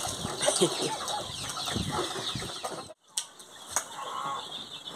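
Hens clucking, with chicks peeping in a brooder. After a sudden break, two sharp knocks come as a coconut is struck open with a blade.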